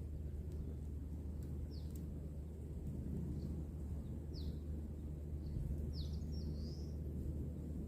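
Outdoor ambience: a steady low rumble with a few short, high, falling bird chirps. The chirps come at intervals, with a longer warbling call about two-thirds of the way in.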